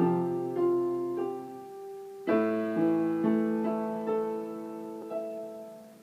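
Piano playing slow notes and chords that ring on and decay. A fuller chord comes about two seconds in, and the last note dies away near the end.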